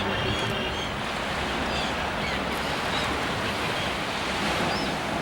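Steady rushing outdoor noise, with a few short, faint bird chirps scattered over it.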